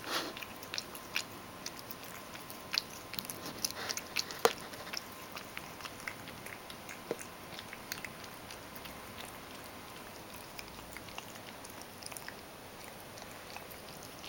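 Ragdoll cat eating a mash of crushed kibble softened with hot water: wet smacking and chewing clicks, dense for the first few seconds, then thinning out.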